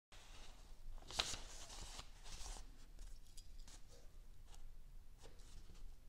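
Pages of a paperback book being leafed through by hand: a run of soft paper rustles and flicks, the sharpest about a second in.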